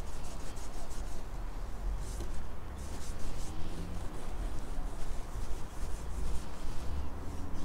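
A cloth damp with methylated spirits rubbed back and forth over the lacquered wooden top of a radio cabinet, in a solvent test of the finish.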